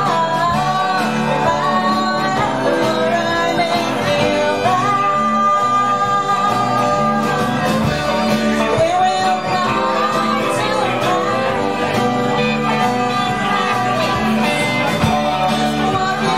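Live rock band playing a song, a woman singing lead over guitars, violin, bass and drums.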